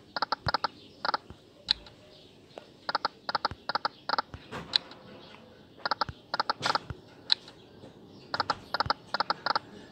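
Online fruit slot machine game sound effects: quick runs of short electronic clicks as the reels stop one after another. The runs come in four bursts a few seconds apart as spin follows spin, with a few single clicks between them.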